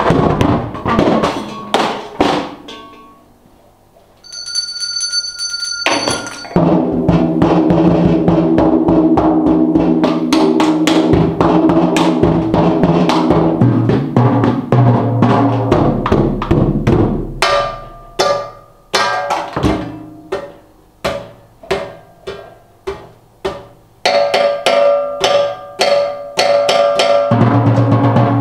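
Solo drumming on a drum kit's toms and snare, mostly fast, dense rolls with the drums ringing. About four seconds in there is a short lull with a brief high ringing tone. From around eighteen seconds there are spaced single hits, then the rolls return.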